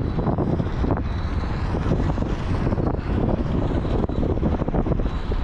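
Steady low rumble with wind buffeting the microphone, on the open deck of a moving riverboat.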